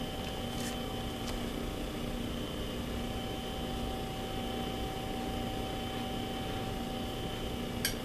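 Steady hiss with a low electrical hum from a nest-cam audio feed, with a couple of faint ticks early and one sharp click near the end.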